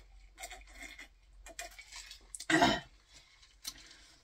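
Drinking from a glass mason jar of iced tea: swallowing sounds and small clicks of ice cubes against the glass, then one brief, louder sound about two and a half seconds in.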